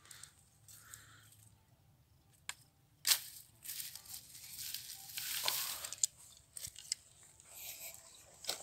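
Dry rice straw and stubble rustling and crunching underfoot and under the hand, with several sharp snaps, the loudest about three seconds in.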